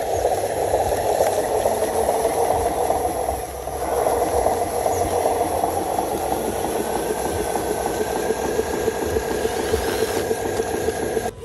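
Radio-controlled model Hino 500 truck running as it hauls a loaded semi-trailer: a steady rattling mechanical noise, with a thin high tone that creeps slowly up in pitch from about halfway through.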